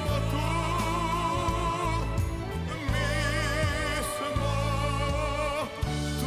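A live pop-ballad performance: a singer holds long notes with wide vibrato over a band with steady bass and backing vocals.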